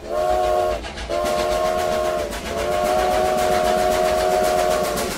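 Steam locomotive whistle blowing three blasts: two shorter ones, then a long one. Each blast sounds as a chord of several tones.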